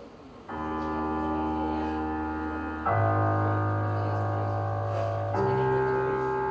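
Background music of sustained keyboard chords, coming in about half a second in and changing chord twice, every two and a half seconds or so.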